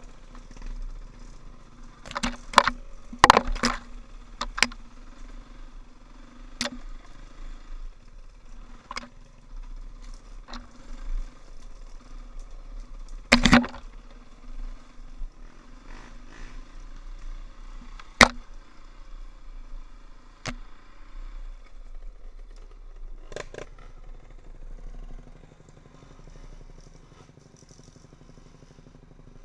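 KTM dirt bike engine running at low revs on a rough forest trail, with repeated sharp knocks and clatter as the bike jolts over the ground. Near the end the engine drops to a quieter, steady low tone as the bike slows.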